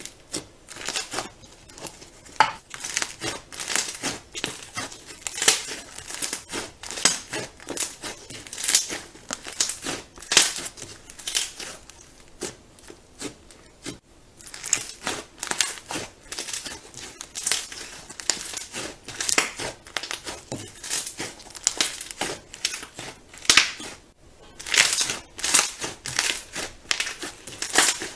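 Crunchy slime being squeezed and pressed by hand, giving dense, irregular crackling and popping crinkles in quick bursts, with brief pauses now and then.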